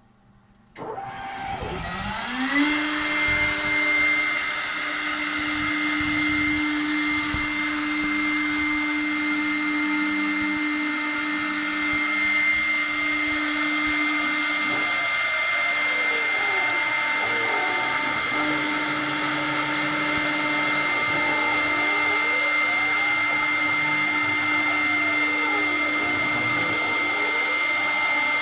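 Pacer Cadet 1200 CNC router: its high-speed spindle starts about a second in, whining up in pitch and settling to a steady high whine over a rushing air noise. About halfway through, rising and falling tones begin to sweep repeatedly over the whine as the machine's axes travel back and forth while machining.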